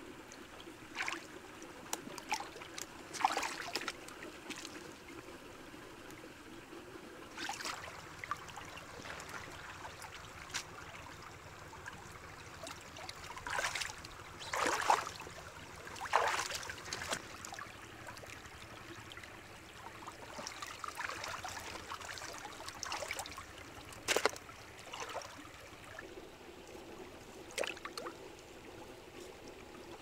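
Water sloshing and splashing in a shallow stream as someone wades and gropes in the water with their hands: irregular splashes, loudest about halfway through, over a faint steady trickle of the stream.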